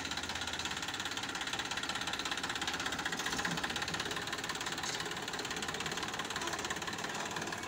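Massey Ferguson tractor's diesel engine running with a steady, even pulse as it pulls a trolley slowly past.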